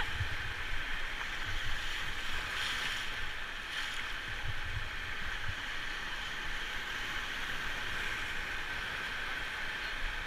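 Steady rush of river water, with irregular low rumbling bumps in the first half.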